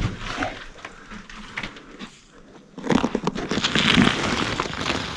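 Crackling and crunching of debris being disturbed, with a sharp knock at the start and a louder, dense stretch of rustling from about three seconds in.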